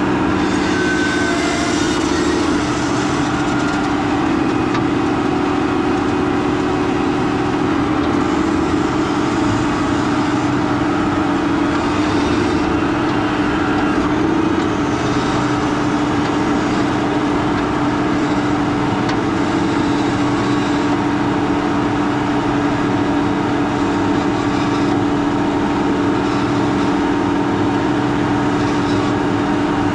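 Case IH Quadtrac 580 tracked tractor's diesel engine running steadily under load while pulling a 14-furrow plough.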